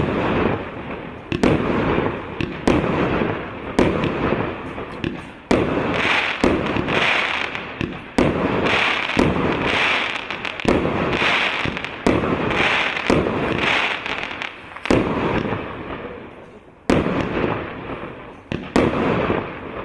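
Consumer firework battery (the P8598 salute cake) firing shot after shot, about one a second. Each launch bang trails off in a crackle, with a short pause near the end.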